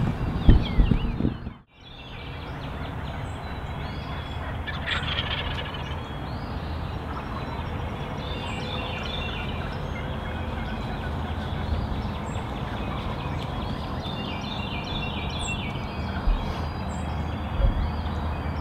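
Wild turkey toms gobbling, with rattling calls about 5 seconds in and again in series around 8 and 15 seconds, over a steady outdoor background. A short rustle of handling at the start cuts off about two seconds in.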